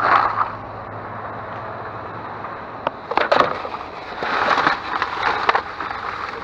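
Rummaging through loose plastic coffee pods: clattering and rustling, with a few sharp clicks about three seconds in and a longer stretch of scraping and rattling after that.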